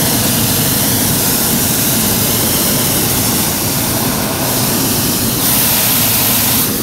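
Hot air balloon's propane burner firing a long, steady roaring blast overhead, growing brighter and louder for about a second near the end.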